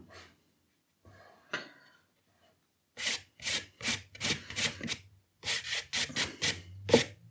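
Paintbrush scrubbed across watercolour paper in quick dry-brush strokes to add texture: a run of short scratchy rubs, about three a second, starting around three seconds in.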